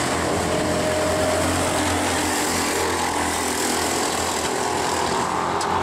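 Several go-kart engines running together at racing speed, their buzzing pitches overlapping as the karts take a corner.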